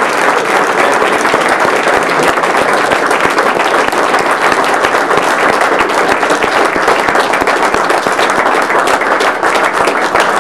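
A crowd of people clapping in dense, steady applause.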